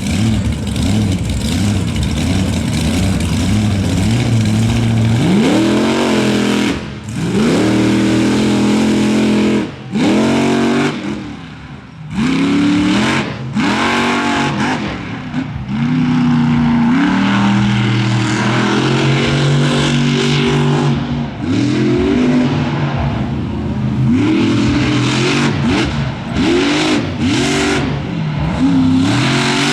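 Monster truck engine revving hard in repeated bursts, its pitch climbing sharply and then falling away, with a few brief lulls.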